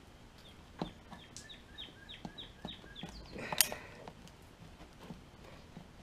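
A knife being worked into the side of a plastic snowblower gas tank to slice a crack. It makes faint scraping and clicking, with a quick run of about ten high, falling squeaks in the first half and a sharp snap about three and a half seconds in.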